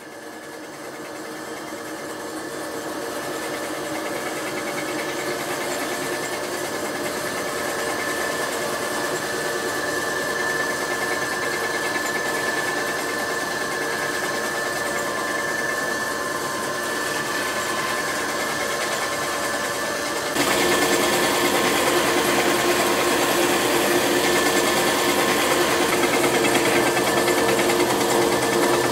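Electric fleece-finishing machine for sheepskins spinning up and running with a steady whine as a wool pelt is worked against its rotating roller. About twenty seconds in it gets louder and rougher.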